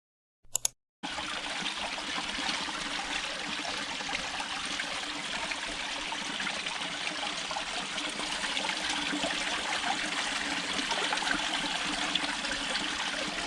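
Mountain stream water running steadily, starting about a second in.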